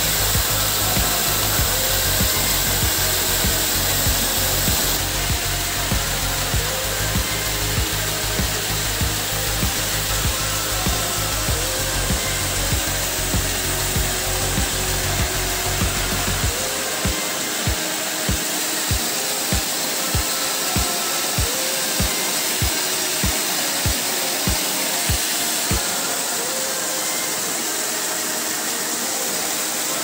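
Waterfall pouring steadily into a rock pool, with background music over it. A regular beat of about two thumps a second comes in a little past halfway and stops near the end.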